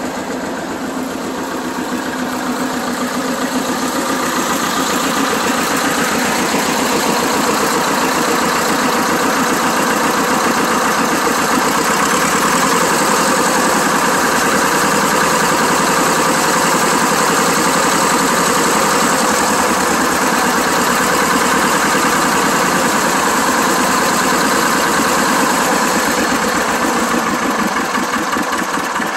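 Vladimirets T-25A1 tractor's two-cylinder air-cooled diesel running at idle with a steady, rapid firing beat. It grows louder over the first few seconds, then holds steady.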